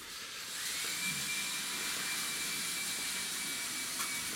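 A small electric motor spinning up and then running steadily: a rushing air noise with a high whine that climbs over the first second and then holds its pitch. A faint click comes about four seconds in.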